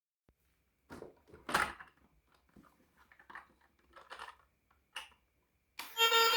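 Handling sounds of an unboxing: a handful of short, separate rustles and knocks, the loudest about a second and a half in. Music begins just before the end.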